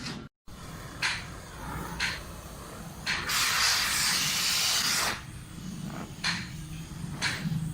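A hiss of escaping gas or spray lasting about two seconds, with a few short, sharp knocks before and after it.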